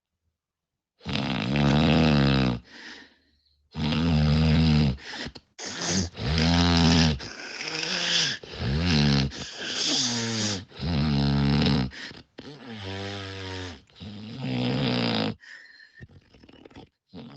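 A woman snoring loudly, one snore after another, about a dozen in a row, each up to a second and a half long with a wavering pitch; they stop about fifteen seconds in.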